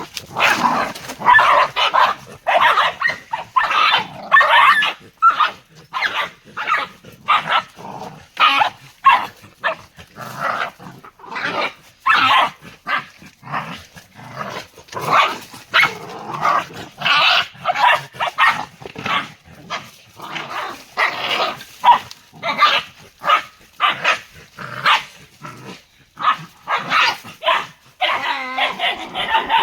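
Dogs fighting: a continuous, closely packed run of barks and growls with only brief gaps.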